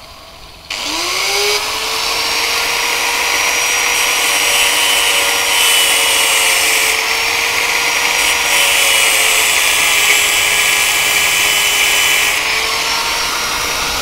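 Handheld angle grinder spinning up about a second in and grinding through the spare end of a steel motorcycle kick-start spring: a steady motor whine under a loud hiss of metal being ground. The grinding hiss stops near the end while the motor keeps running.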